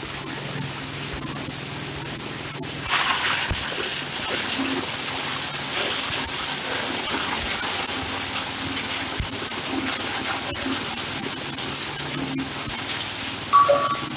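Grass chopper driven by a small petrol engine, running steadily and heard mostly as an even rushing hiss, with a brief louder rush about three seconds in.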